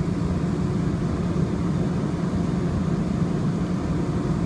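Steady low rumble of a Muni Metro light-rail car running along its track, heard from inside the car.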